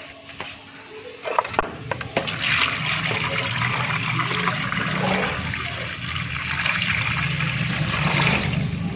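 A stream of water pouring into a metal pot of raw beef trotter pieces, a steady splashing rush that starts about a second and a half in, after a few light knocks.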